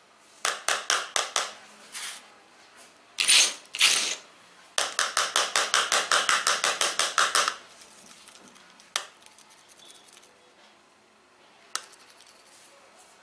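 Metal screwdriver tip scraping back and forth across the Gorilla Glass 3 screen of a Sony Xperia E4 in quick runs of strokes, the longest run about five strokes a second. Two single sharp clicks follow later.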